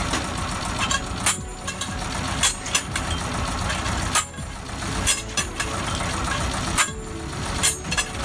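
Shell and auger drilling rig's engine running steadily, with sharp knocks at uneven intervals, about one a second, as the rig is worked.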